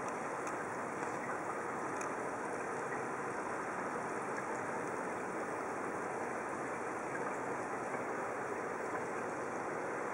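Steady underwater rushing noise, heard through the camera, with a few faint clicks.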